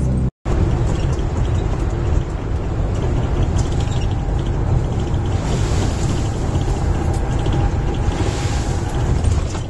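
Engine and road noise inside the cabin of a moving vehicle: a steady low rumble with tyre hiss that swells at times. The sound drops out for a moment just after the start.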